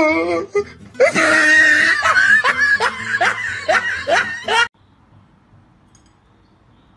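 A person laughing hard in a string of short falling bursts, about three a second, which cuts off suddenly a little under five seconds in and leaves only faint room noise.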